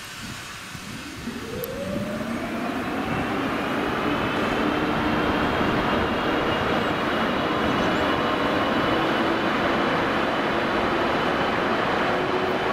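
ČD class 151 electric locomotive's ventilation blowers spinning up: a whine of several pitches that rises for a few seconds, then runs steadily at full speed over a rushing hiss.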